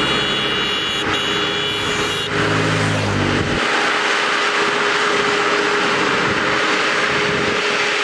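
LOVOL RG108 Plus V2.0 crawler combine harvester running: steady engine and machinery noise with a high whine in the first couple of seconds. Around three seconds in, a low engine note falls away, leaving a steady rushing mechanical noise with a constant hum.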